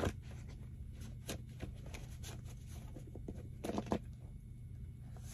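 A deck of oracle cards shuffled by hand: soft, irregular flicks and rustles of the cards, with a couple of louder card slaps just before the end, over a faint low hum.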